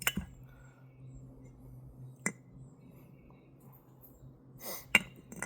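A few small, sharp metal clicks as a bearing is handled and set into the greased gearbox housing of a Stihl HT 131 pole pruner's cutting head: one about two seconds in and a louder one near the end, over a faint steady hum.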